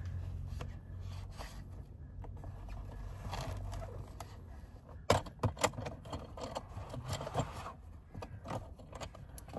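Handling sounds of a child car seat being fitted in a car: scraping and rustling over a low hum, then a run of sharp plastic and metal clicks and knocks from about halfway, as buckles and latches are worked.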